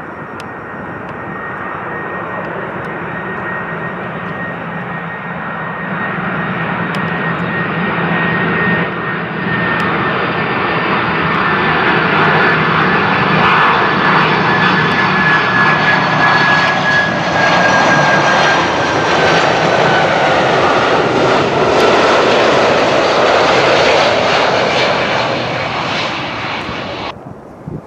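Four-engine Boeing 747-400 jet engines of a KLM jumbo passing low and loud. The noise builds steadily as the aircraft approaches, with a high fan whine that slowly drops in pitch. It peaks as the aircraft goes by and then eases before cutting off abruptly near the end.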